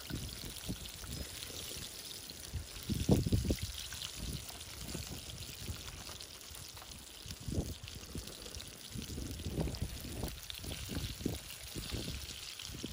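Chicken legs deep-frying in hot oil in a cast iron skillet: a steady bubbling sizzle, with another leg lowered into the oil near the end. Irregular low rumbles and thumps come and go, the strongest about three seconds in.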